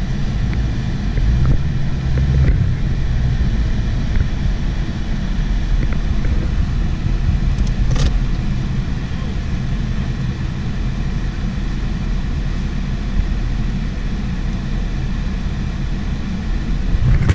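Car engine and road noise heard from inside the cabin while driving, a steady low rumble; one sharp click about eight seconds in.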